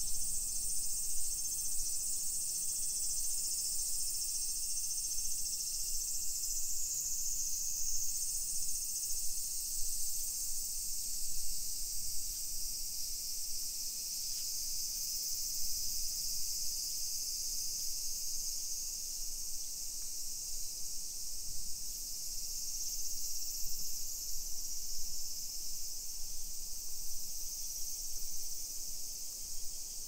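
A chorus of summer cicadas buzzing continuously, a steady high-pitched drone.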